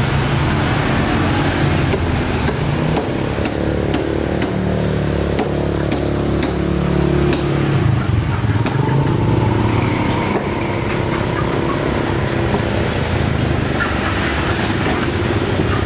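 A motor engine running steadily, its pitch drifting up and down, with scattered sharp knocks of a cleaver chopping fish on a wooden block.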